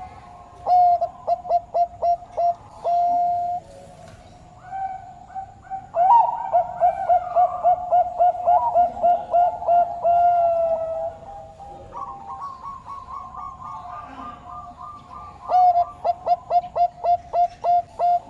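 Bangkok turtledoves (zebra doves, the perkutut bred for song) cooing: three runs of quick, evenly spaced coo notes, each ending in a longer held note, with a second, higher-pitched dove calling in between.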